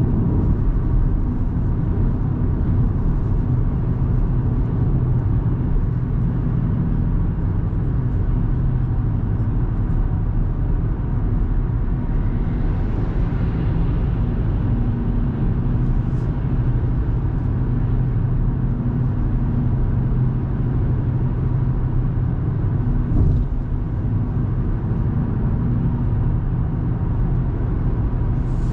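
2024 Audi A3 Sportback's 1.5 TFSI four-cylinder turbo petrol engine running steadily on the move, its low hum blended with tyre and road rumble. One brief bump about four-fifths of the way through.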